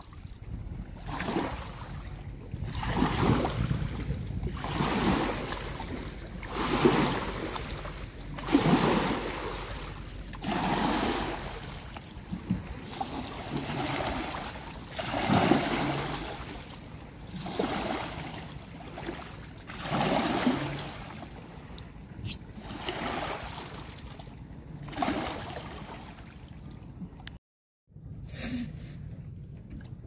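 River water surging and splashing against a wooden boat hull and a muddy bank in repeated waves, about one every two seconds, over a low steady rumble. The surges die away near the end.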